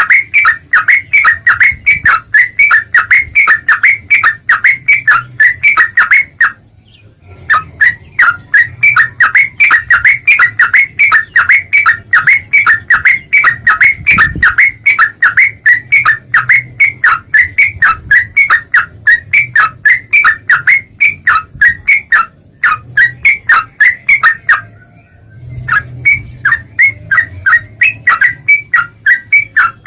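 Yellow-vented bulbul (trucukan) calling in a fast, even series of sharp chattering notes, about three to four a second, broken twice by short pauses.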